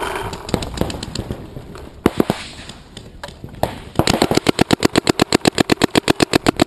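Planet Eclipse Shocker RSX electronic paintball marker firing: a few scattered single shots, then from about four seconds in a fast, even string of shots at about eleven a second that stops near the end.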